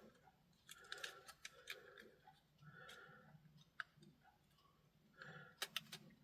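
Faint, scattered small clicks and taps of tiny plastic radio parts being handled and fitted, over near silence.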